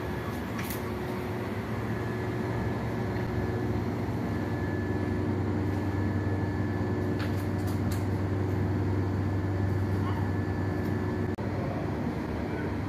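Machinery running steadily: a low, even drone with a faint, steady high whine over it, and a few light clicks.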